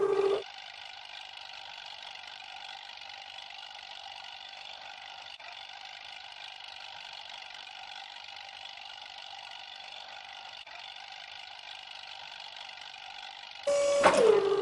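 A steady machine drone with several even tones and no deep rumble, unchanging for about thirteen seconds and cutting off abruptly near the end.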